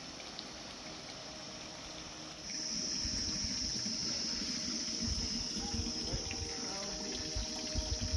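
Steady, high-pitched insect chorus that grows louder about two and a half seconds in, with irregular low thumps and rumble underneath.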